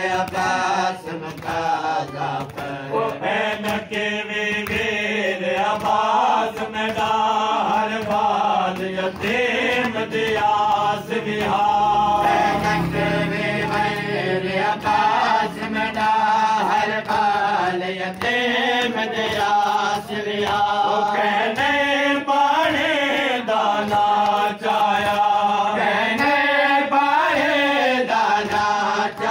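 A group of men chanting together in unison, a Muharram mourning chant, with held, wavering notes and sharp beats keeping time.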